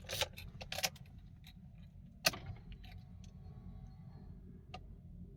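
Car keys jangling and clicking as the ignition key is handled, with one sharp click a little past two seconds in, over a faint steady low hum.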